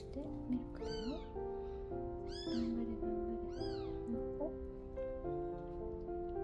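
Newborn kitten mewing: three high, thin arching cries, about a second in, about two and a half seconds in and about three and a half seconds in, over steady background music.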